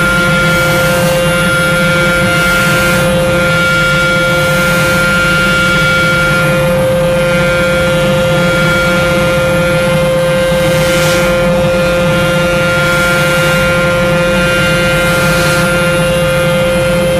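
The small electric motors of a scale-model car wash running steadily, a constant whine over a low hum.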